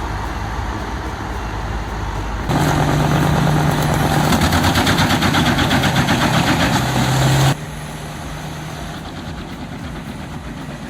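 Engine-driven wood chipper running, with a louder stretch of about five seconds of fast, even rattling over a steady engine hum that begins and ends abruptly.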